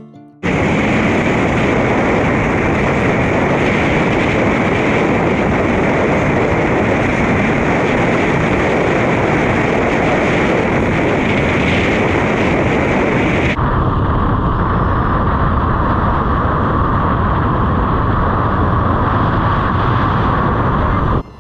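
A steady, loud rushing of wind and road noise from a moving motorcycle, with no clear engine note. About thirteen and a half seconds in, the sound changes abruptly and loses its highest hiss, as at a cut between clips.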